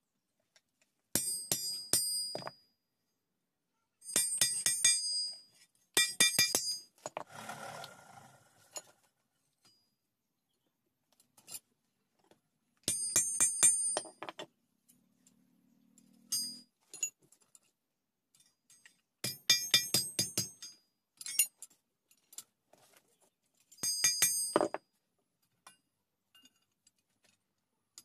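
Hammer blows on a steel punch held against red-hot steel on an anvil, punching or cutting the hot blade. The blows come in about six short bursts of quick strikes, each strike ringing metallically, with pauses between bursts.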